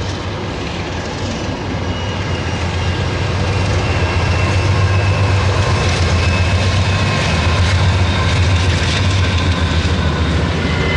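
Lead GE diesel-electric locomotives of a CSX freight running past at close range, a heavy rumble from their V16 diesel engines that grows louder over the first few seconds as they come alongside, then holds steady. A thin, high, steady squeal sounds above the rumble.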